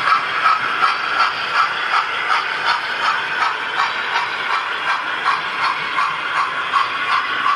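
Model train rolling past on the layout's track: a long rake of coaches running with a steady rattle and an even clicking, about two or three clicks a second.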